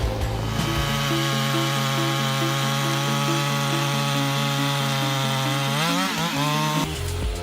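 Chainsaw cutting through wood at a steady high pitch. The revs climb sharply about six seconds in, as the chain frees from the cut, and the sound then cuts off abruptly.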